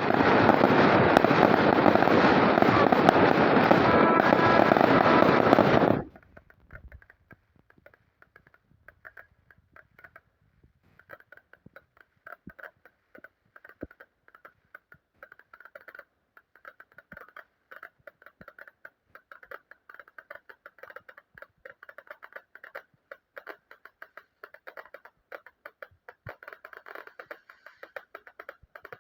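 Fireworks: a loud, steady rushing hiss for about six seconds that stops abruptly, then a long stretch of faint, rapid, irregular crackling pops.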